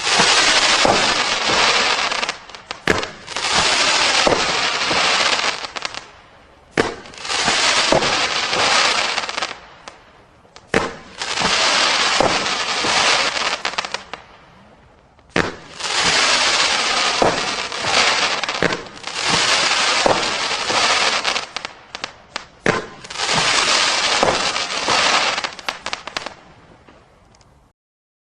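Winda 'High Voltage' 500-gram firework cake firing its shots in quick succession. Sharp launch reports are each followed by a spell of dense crackling, in clusters every couple of seconds, until the cake finishes near the end.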